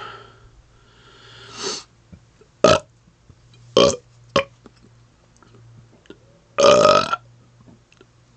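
A man burping deliberately in a string of short burps, about five in all, with a longer burp about two-thirds of the way through.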